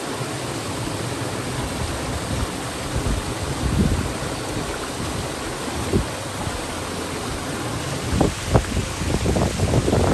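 Small creek waterfall pouring over rocks into a shallow pool: a steady splashing rush of water. A few short low thumps break in near the end.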